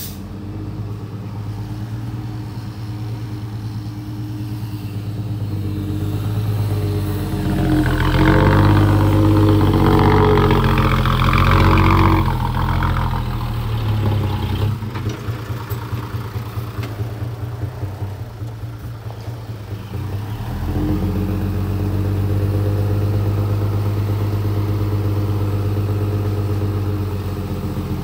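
Mitsubishi Fuso dump truck's diesel engine running. It rises to a loud rev with a rough roar from about 7 to 13 seconds in, drops back to a pulsing idle, then holds a steady higher speed from about 21 seconds in as the tipper bed is raised.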